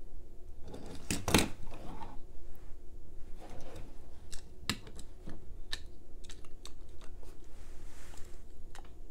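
Handling noise from two small die-cast metal toy cars turned and stacked in gloved hands: scattered light clicks and taps with soft rubbing, over a faint low hum.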